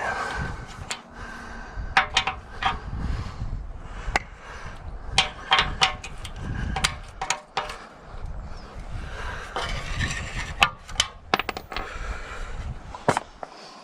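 Irregular sharp metal clanks and knocks, some ringing briefly, from tools and steel hardware as the bolts are taken off an excavator blade's cutting edge.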